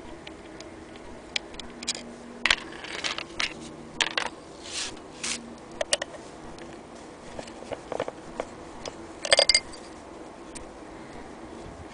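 Irregular clicks, taps and short scrapes of an antique Willcox & Gibbs hand-crank sewing machine being handled at its crank and wheel. The loudest is a brief clatter of clicks about nine seconds in.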